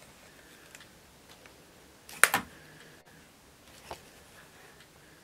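A few sharp plastic clicks from a small clear plastic container being handled: a loud double click about two seconds in and a lighter single click near four seconds, over quiet room tone.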